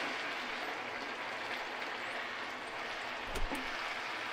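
Chicken curry sizzling in a frying pan while it is stirred with a wooden spatula, with one knock of the spatula against the pan about three and a half seconds in.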